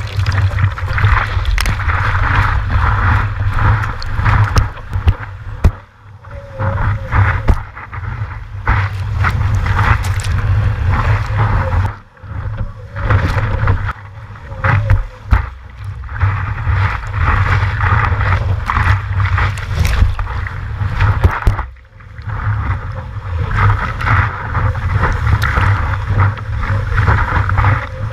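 Sea water rushing and splashing over a surfboard as it is paddled and then ridden along a wave, heard through an action camera on the board's nose, with heavy water and wind buffeting on the microphone. The noise is continuous and rough, with sharp spatters of spray, and drops away briefly three times.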